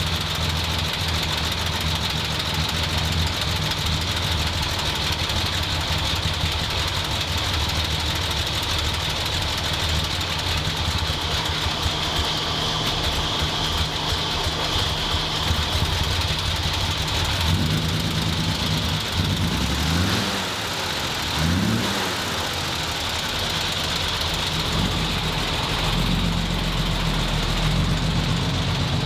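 1952 International L-160 truck's 240 cubic-inch inline-six engine idling steadily, revved up and back down twice about two-thirds of the way through, then settling back to idle.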